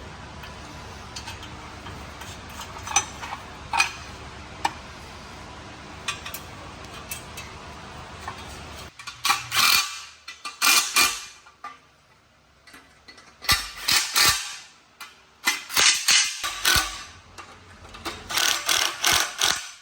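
Hand tools working on metal hardware. A few scattered clicks are followed by several short bursts of rapid clicking, like a ratchet or a driver running bolts in, as the heat shield is refitted with its original hardware.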